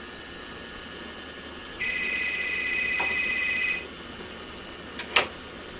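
Desk telephone's electronic ringer trilling once for about two seconds, then a sharp click near the end.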